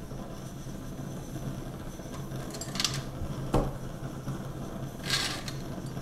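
Primus 71 white gas stove burning with a steady low hum while it is still preheating and not yet burning properly. About three and a half seconds in there is a single sharp metal clink as the printed metal pot support is set on the tin-can windscreen, with a short hiss-like noise shortly before it and another near the end.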